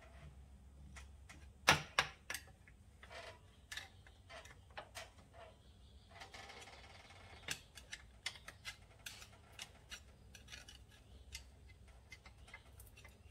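Irregular metallic clicks and clinks of hand tools and engine parts being handled and knocked together, the loudest pair about two seconds in, with a brief rasping scrape near the middle.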